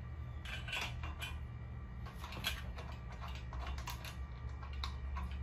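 Allen wrench turning a bolt into a metal futon leg bracket: irregular small metallic clicks and short scrapes in clusters.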